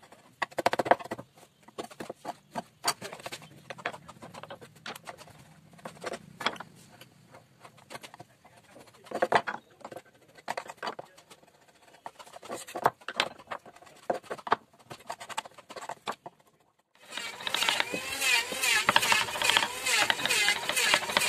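Wood carving chisels at work on a wooden panel: scattered, irregular clicks and knocks of steel chisels and wooden handles against the wood. Near the end the sound turns louder into a fast, even run of wooden mallet taps driving a chisel into the wood.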